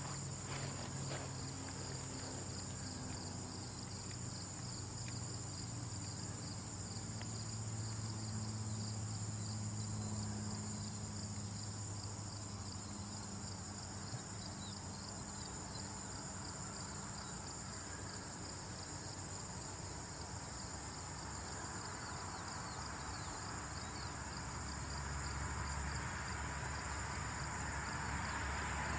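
Steady, high insect chirring over a low hum, the texture of an insect chorus. A rushing noise grows louder near the end.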